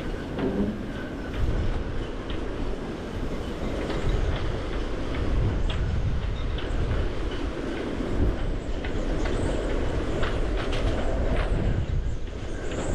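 Strong gusting wind buffeting the microphone as a heavy low rumble, with scattered short knocks and clicks through it.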